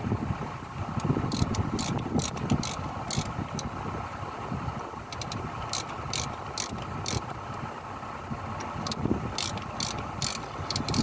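Hitachi Zaxis excavator's diesel engine running steadily, with runs of short, sharp metallic clicks over it.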